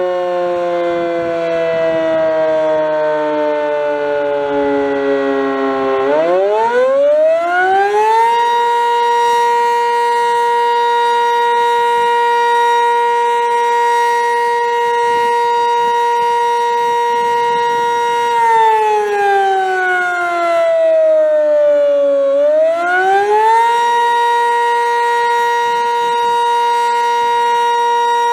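Sentry 15V2T two-tone outdoor warning siren winding down, then winding back up to full pitch about six seconds in and holding its two tones steadily for about ten seconds. It dips in pitch again, then rises back and holds.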